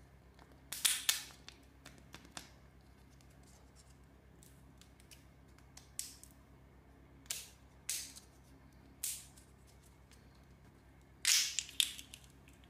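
Thin clear plastic candy wrapper crackling and clicking as fingers prise and peel it off a gummy eyeball sweet. The sounds come in about seven short, sharp bursts, and the loudest comes near the end as the shell comes away from the gummy ball.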